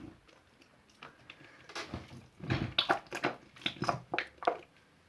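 Slime being squeezed and worked by hand, giving an irregular run of quick squelches and sticky pops, starting about two seconds in.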